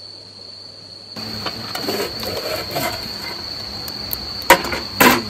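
Stainless-steel Camerons stovetop smoker box being handled: two sharp metal clanks, about half a second apart near the end, as its lid is worked off.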